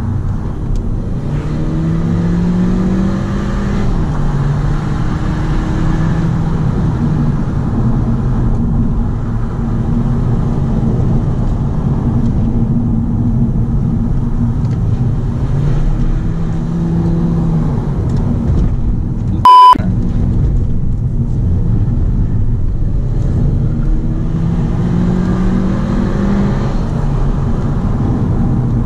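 Audi A3 1.4 TFSI four-cylinder turbo petrol engine heard from inside the cabin on the move, its pitch climbing several times as the car accelerates. A brief, very loud beep cuts in about twenty seconds in.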